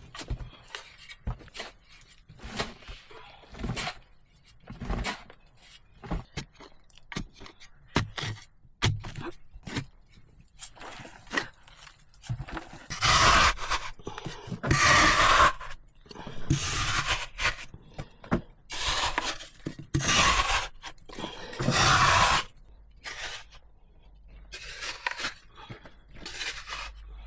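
Hand-tool work: scattered light knocks and clicks, then a run of six loud scraping strokes of about a second each, every second or two, with a few fainter scrapes near the end.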